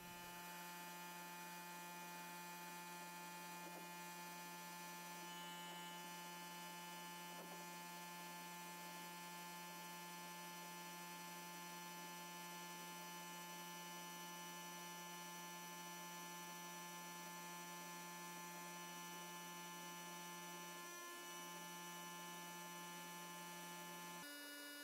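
A steady, even hum made of several held tones over a faint hiss, which changes abruptly to different tones near the end.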